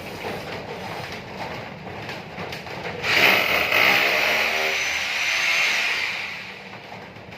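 A power tool runs loudly, starting suddenly about three seconds in and fading out near the end, over a rougher, quieter background noise.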